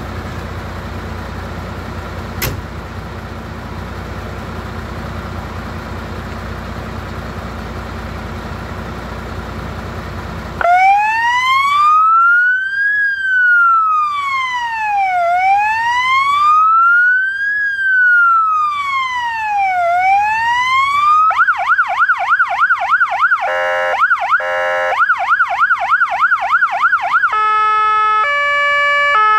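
A MAN TGS 33.460 fire engine idles with a steady low hum and a single knock about two seconds in. About ten seconds in, its siren starts with a slow wail that rises and falls every few seconds. About two-thirds through it switches to a fast yelp, and near the end to a two-tone hi-lo.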